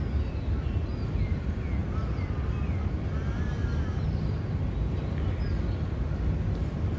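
Steady low outdoor rumble with scattered short bird chirps and whistles over it.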